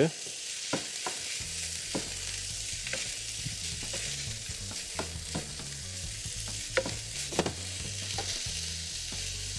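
Ground chicken filling with diced bell peppers sizzling in a non-stick frying pan while a wooden spatula stirs it, giving irregular light knocks and scrapes against the pan, over a low steady hum.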